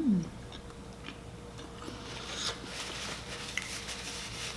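Faint eating sounds close to the microphone: soft chewing and small clicks and rustles of food being handled, busier from about two seconds in.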